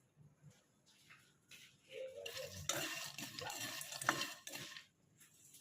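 Spatula stirring and scraping kabok nuts (wild almond seeds) around a pan as they dry-roast over low heat: faint at first, then a run of scraping strokes with a sharp clink about four seconds in.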